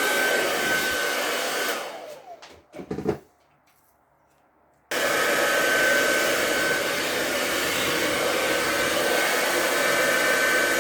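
Handheld hair dryer blowing steadily with a thin whine, switched off about two seconds in and winding down, a few handling knocks, then a moment of near quiet before it is switched back on abruptly about five seconds in and runs on steadily.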